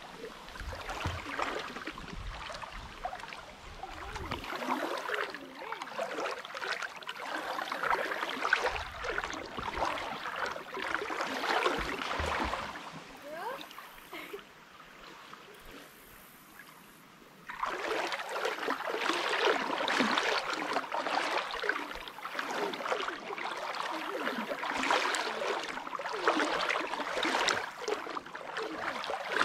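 Creek water rushing and splashing. It dies down for a few seconds past the middle, then comes back suddenly louder.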